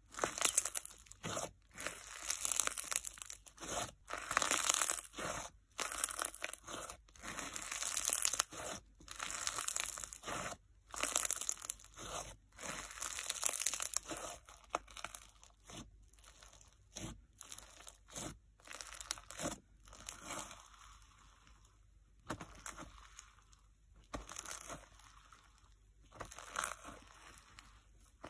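Snow-packed fizz slime being pressed, squeezed and stretched by hand, giving crisp crackling and crunching in repeated bursts. The crackles grow softer and sparser for a few seconds after the middle.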